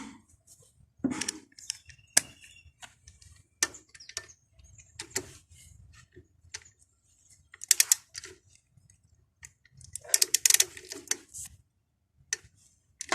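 Hand tools working on the engine's accessory bracket bolt: scattered metallic clicks and clinks of a wrench and bolt, with a quick run of clinks about two-thirds of the way in and a busier spell of clinking near the end.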